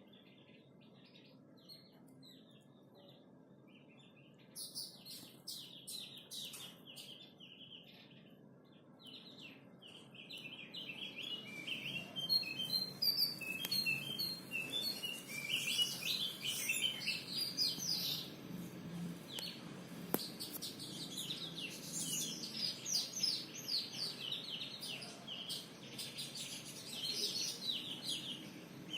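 Opior jawa (Javan grey-throated white-eye) singing in rapid chirping phrases, sparse at first, then a dense, continuous chatter from about ten seconds in.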